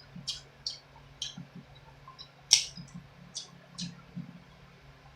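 Close-miked eating sounds from a seafood boil: a string of short wet clicks and crunches, about a dozen of them, with one sharper crack about two and a half seconds in.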